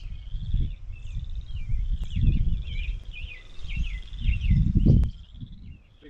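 Wind buffeting the microphone in uneven gusts, strongest about two and five seconds in, while several birds keep chirping and trilling.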